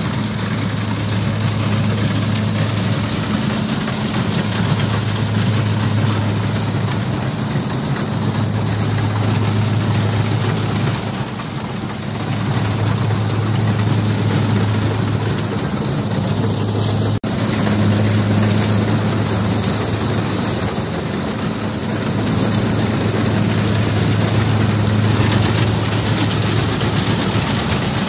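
Kubota DC60 rice combine harvester at work: its diesel engine and threshing machinery run steadily in one continuous drone with a strong low hum. A momentary break comes about two-thirds of the way through.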